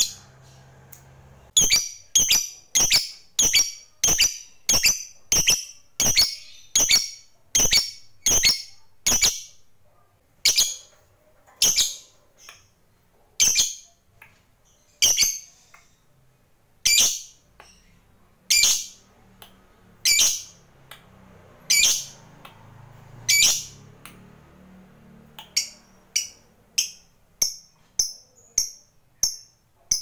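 Peach-faced lovebird in its blue mutation giving a long run of single short, sharp, high calls. They come about two a second at first, slow to one every second and a half or so midway, and quicken to about two a second again near the end.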